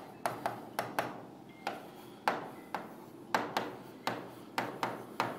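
Pen stylus tapping and clicking against the glass of an interactive display while numbers are handwritten on it. The taps are sharp and irregular, a few each second.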